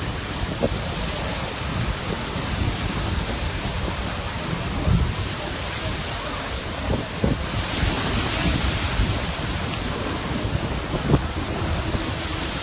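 Lava stream pouring into the sea: a steady rushing noise of surf and hissing steam, with wind rumbling on the microphone. A few sharp thumps break through, the loudest about eleven seconds in, and the hiss brightens around the middle.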